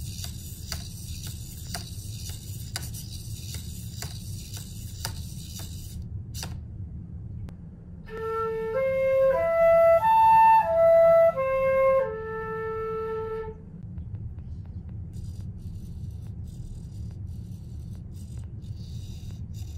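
A concert flute plays an A minor arpeggio in the middle, seven notes going up to the top A and back down over about five seconds. Before it, a small two-legged toy robot moves with a high motor whir and ticks about twice a second. Near the end its motors whir faintly again, over a low steady hum.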